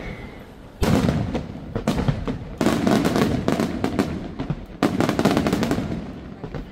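Aerial fireworks shells bursting in volleys, loud sudden reports about a second in, near the middle and again near the end, each followed by a dense run of rapid pops.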